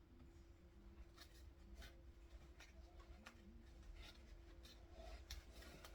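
Near silence: a few faint, light clicks and taps as wooden jointing biscuits are pushed into glued slots, over a faint steady hum.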